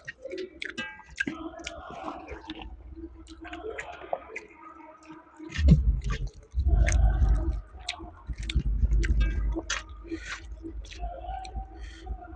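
Close-up chewing and eating: wet mouth smacks and small clicks as rice and fried chicken are chewed, with a few loud low bumps near the middle.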